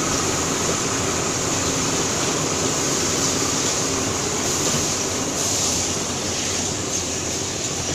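Toilet paper production line and single-roll packing machine running: a steady, even machine noise with a high hiss on top.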